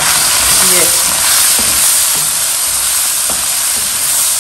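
Chicken pieces and tomato paste sizzling in hot oil in a non-stick kadai while being stirred with a wooden spatula: a steady, loud frying hiss with a few light knocks of the spatula against the pan.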